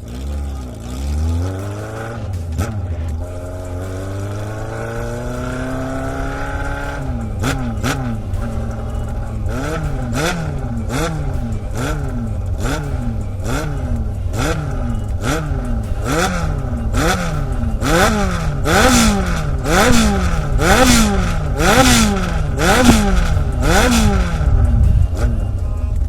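Kawasaki Z400FX inline-four engine running through a Kamikaze 4-into-1 collector exhaust and silencer. The revs climb steadily for about seven seconds, then the throttle is blipped rhythmically about once a second, each rev rising and falling, with a sharp crack at each peak, getting louder toward the end.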